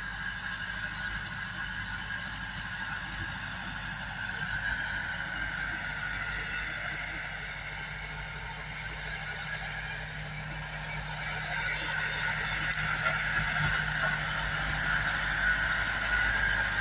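SAME orchard tractor's diesel engine running steadily while tilling the soil, growing louder after about eleven seconds.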